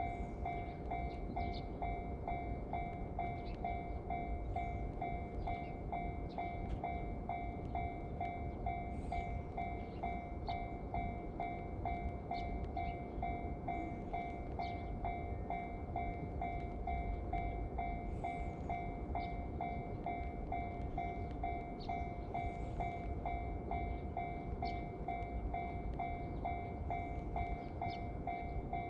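Japanese level-crossing alarm ringing its rapid, evenly repeated 'kan-kan' tone, over a steady low rumble.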